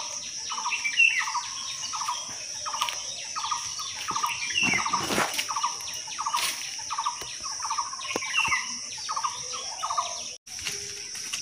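A bird calling, a short note repeated about twice a second with occasional higher chirps, over a steady high-pitched insect drone.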